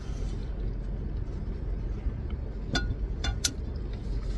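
Steady low hum inside a car cabin, with a few sharp clicks and taps about three seconds in.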